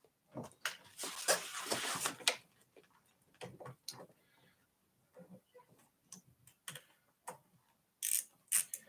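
Irregular light clicks and ticks of hands and a tool working on the ebike's handlebar and stem, with a short rustle about a second in.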